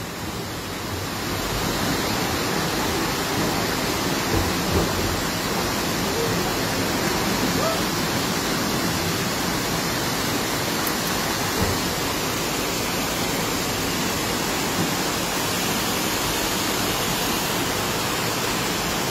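Floodwater rushing through a street in a torrent, mixed with heavy rain: a steady, unbroken wash of water noise.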